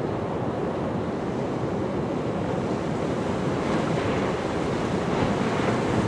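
Ocean surf: large waves breaking, a steady rush of whitewater.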